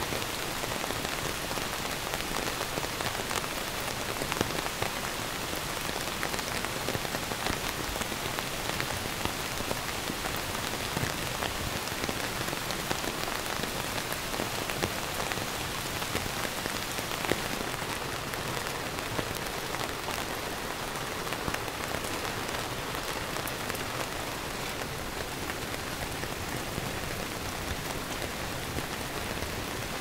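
Steady heavy rain, with scattered single drops tapping louder now and then.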